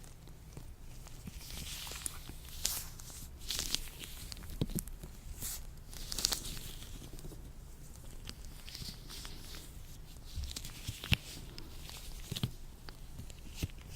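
Latex gloves being rubbed and handled: irregular rustling broken by short sharp snaps and crackles.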